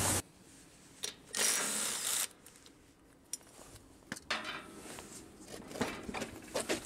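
Lawn tractor rear wheel turned by hand, turning the transaxle: light mechanical clicks and a soft gear rattle, with a few sharp knocks and a short burst of hiss about a second and a half in.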